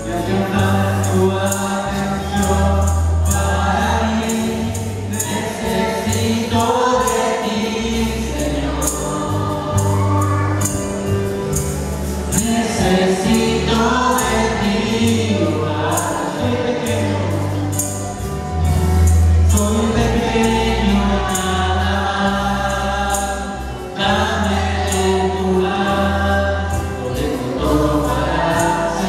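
Worship music: voices singing a slow praise hymn over a bass line that steps from note to note, with light percussion keeping a steady beat.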